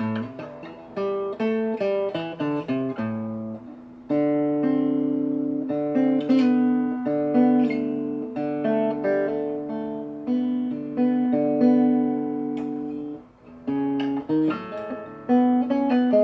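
Egmond archtop acoustic guitar played with the fingers after its repair, with the string action set to about 90 thousandths of an inch on the bass side and 80 thousandths on the treble side. It opens with quiet single plucked notes, then moves into fuller, louder ringing chords over a bass line, with a short break a few seconds before the end.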